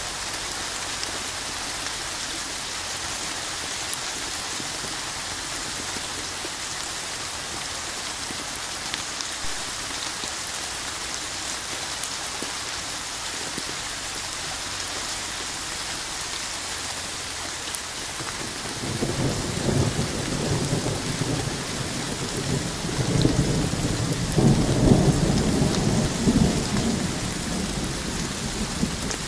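Steady rain falling on a hard surface, with a long roll of thunder that starts about two-thirds of the way through and is loudest near the end.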